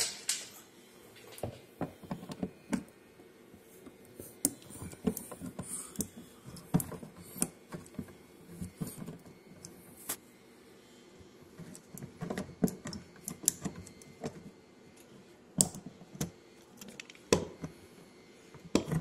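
Irregular small clicks, taps and clatters of hand work with tools and small hardware such as bolts and screws, scattered unevenly with a few louder knocks.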